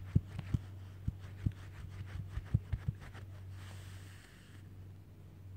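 Soft, irregular thumps and light taps over a steady low hum, thickest in the first three seconds, with a brief rustle a little past the middle.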